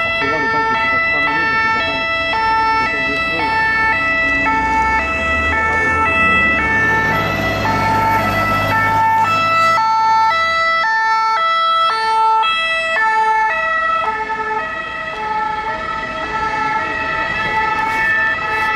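French SAMU ambulance two-tone siren, alternating between a high and a low note. A low engine rumble comes in about a quarter of the way through and cuts off a little past halfway.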